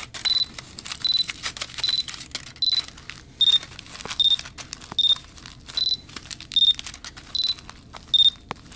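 A Backcountry Access Tracker avalanche transceiver in search mode beeps steadily, a short high beep about every three-quarters of a second, alternating between two slightly different pitches, as it picks up a transmitting beacon wrapped in tin foil that is shielding its signal. Aluminium foil crinkles under a hand pressing it down around the wrapped beacon.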